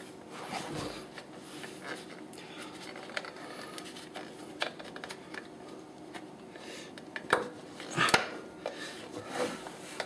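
Silicone-lubed rubber bump stop being worked and pressed into its mounting pocket by a gloved hand: soft rubbing and handling noise with scattered small clicks, and a few sharper knocks near the end as it is pushed home.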